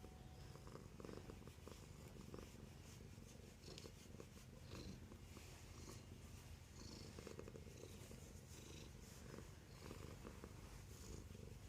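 A domestic cat purring steadily and softly, close by.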